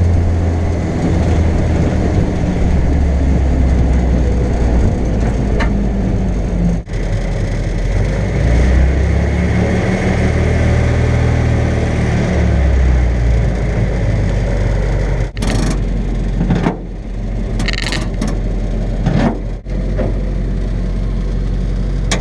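1946 Willys CJ2A's four-cylinder Go-Devil flathead engine running as the jeep drives, its low drone stepping up and down in pitch several times. It is broken by a few abrupt cuts.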